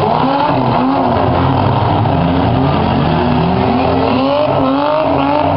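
Engines of several compact demolition-derby cars revving at once, their pitches rising and falling over one another.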